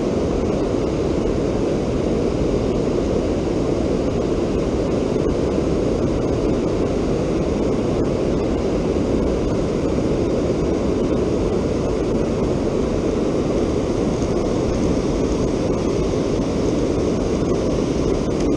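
Water spilling over a river dam and churning just below it: a steady, even rushing.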